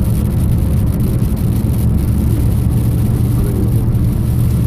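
Car driving along: a steady low engine and road rumble.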